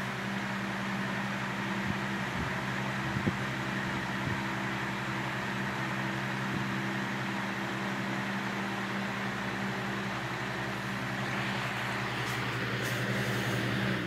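Vintage Diehl 16-inch table fan running steadily: a low electric hum from its motor under an even rush of air from the spinning blades.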